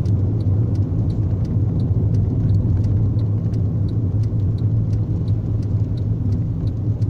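Vehicle engine running steadily with a low hum, and a faint light ticking about three times a second.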